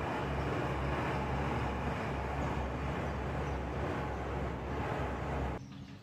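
An exercise bike pedalled at a steady pace, giving a continuous whirring whoosh with a low hum. It cuts off abruptly near the end, leaving a much quieter background.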